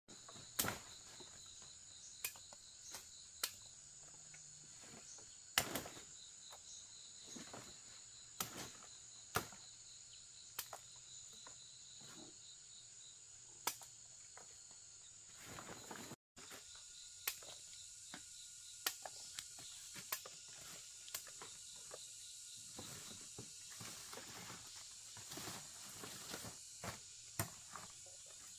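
Forest insects buzzing steadily at a high pitch, with irregular sharp snaps and crackles throughout.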